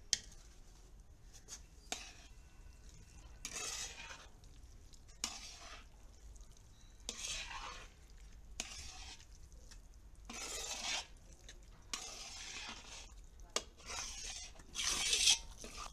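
Metal spoon stirring a thick, wet mixture of hot sugar syrup and fried amla paste in a wok: repeated wet scraping swishes every second or two, with a few sharp clinks of the spoon against the pan.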